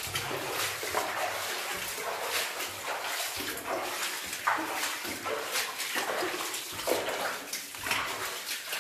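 Wading footsteps through water on a flooded mine tunnel floor: a slosh and splash with each step, about one or two steps a second.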